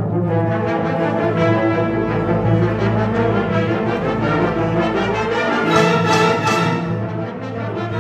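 Concert band playing loud sustained chords, with the brass leading over the full ensemble. There is a low rumble underneath through the middle, and a brighter, louder stretch about six seconds in.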